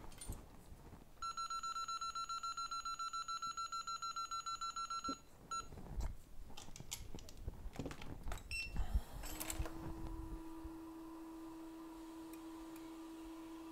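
Rapid electronic beeping for about four seconds, then a few clicks of handling. About nine seconds in, a hot air rework station's blower spins up with a rising whine and settles into a steady hum as hot air is applied to desolder a shorted, exploded capacitor from a phone logic board.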